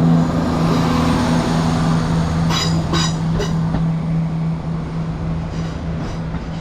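Diesel multiple-unit train running at the platform, its engine a steady hum that slowly grows quieter as it gets under way, with two short high beeps about two and a half seconds in.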